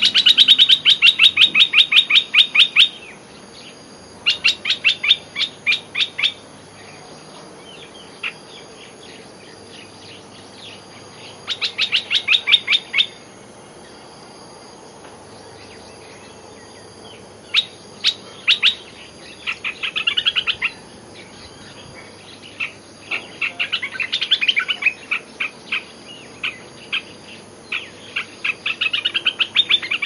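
Olive-winged bulbul (merbah belukar) singing: bursts of fast, rapid-fire chattering notes, each burst one to three seconds long, broken by pauses and coming closer together in the second half.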